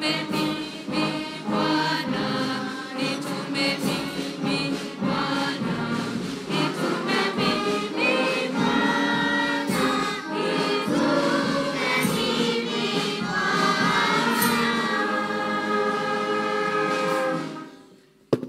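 Brass band of trumpets, cornets, trombones and tubas playing a hymn tune, with voices singing along. The music fades away about seventeen seconds in, and a single knock follows just before the end.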